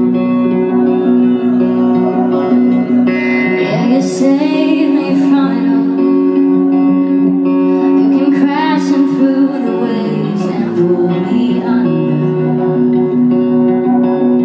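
Live band music: an electric guitar with steady held chords underneath. A woman's voice sings sliding phrases about four seconds in and again near nine seconds.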